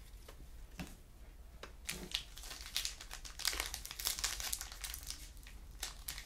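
Trading-card pack wrappers crinkling and rustling as they are handled, in irregular soft crackles.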